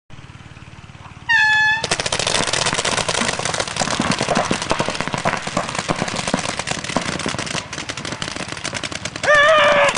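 A short horn-like tone signals the start of a paintball speedball point, then paintball markers fire in a dense, rapid stream of pops. A voice shouts near the end.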